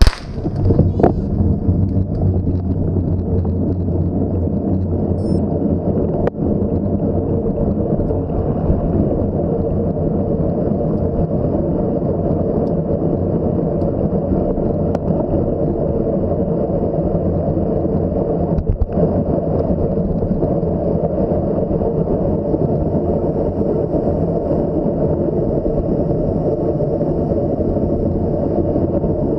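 Steady rumbling wind and road noise on the microphone of a mountain bike ridden at speed, setting in suddenly at the start and holding at an even level.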